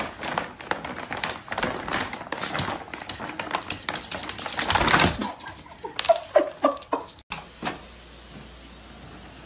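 Plastic dog-food bag crinkling and rustling as a pug moves about with its head stuck inside it. The crinkling stops about five seconds in, followed by a few short high-pitched sounds.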